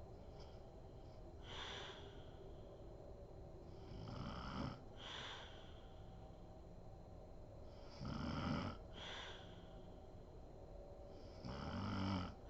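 A sleeping woman snoring in a slow, regular rhythm: three snores about four seconds apart, each a low buzzy snore followed by a breathy exhale.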